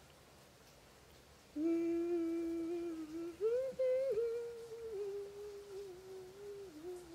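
A woman humming a tune in long held notes, stepping up in pitch about halfway through and then easing back down.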